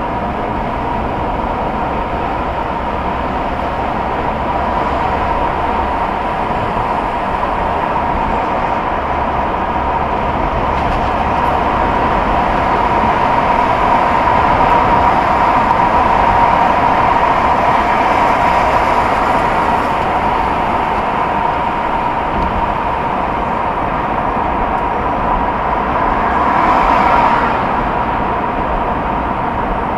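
Steady road noise of a car driving through a highway tunnel, heard from inside the cabin: tyres and engine making a constant rush. It swells briefly near the end as another car passes close alongside.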